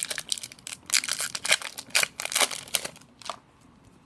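Foil wrapper of a hockey card pack being torn open and crinkled by hand, in quick crackling bursts that stop about three seconds in.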